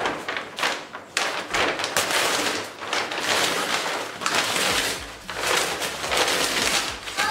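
Heavy paper crinkling and rustling as it is pulled and torn off a wrapped wooden shelf, in a run of crackly strokes with short lulls about a second in and about five seconds in.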